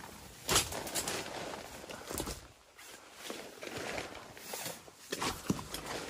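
A folding camp cot with a metal frame being carried in and set down on a tent's plastic groundsheet: rustling and shuffling with a few knocks of the frame, the sharpest about half a second in.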